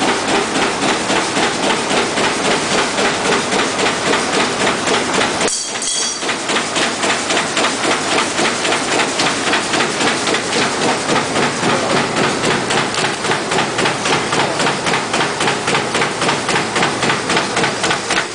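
Automatic paper fan die-cutting machine running, clattering in a fast, even rhythm of about three to four strokes a second as it feeds printed paper off the roll and punches out fan blanks. There is a brief high-pitched sound about five and a half seconds in.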